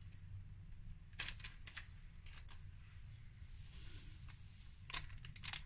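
A packet of instant yeast being opened and handled, with a few faint sharp crackles of the packet, then a soft hiss as the dry yeast granules pour into the jug of water about three and a half seconds in.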